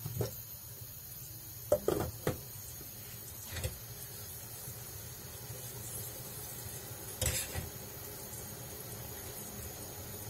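A saucepan and wooden spoon knocking against the pan and the gas stove a handful of times, over a faint steady sizzle of garlic frying in oil.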